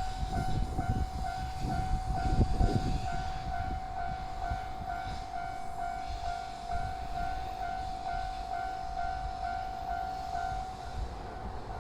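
Japanese level-crossing warning bell ringing in a steady, fast beat of about three strikes a second, over a low rumble. The beat fades out near the end.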